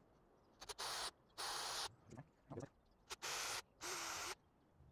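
Cordless drill run in about five short bursts, each up to about half a second, as a twist bit drills pilot holes through an aluminum bar into a wooden block.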